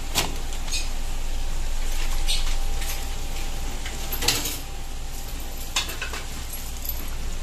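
A pan of butter chicken sauce simmering on the stove, with a steady low hum beneath and a few light clicks, the sharpest about four seconds in.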